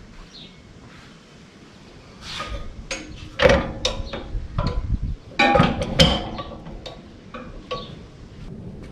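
Metallic clunks, clicks and rattles as the Troy-Bilt Horse tiller is shifted into forward drive, taking up the slack in the freshly fitted drive belt. The two loudest knocks come about three and a half and six seconds in.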